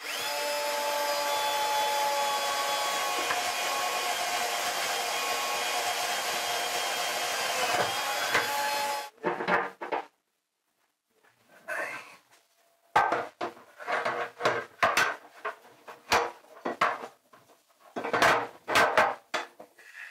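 A small electric power tool motor runs steadily for about nine seconds with a steady whine, then cuts off suddenly. After a short pause comes a string of sharp knocks and clicks as an aluminium mounting plate is handled and set against the bulkhead.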